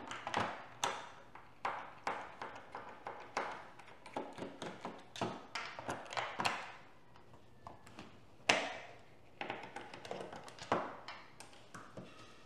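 Irregular light taps and clicks from a small screwdriver unscrewing the screws from a plastic multimeter's back cover, with screws and the tool set down on a desk. There is one sharper, louder click a little past the middle.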